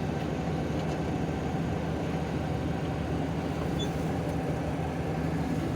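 Steady hum of a moving bus's engine with road noise, unchanging throughout.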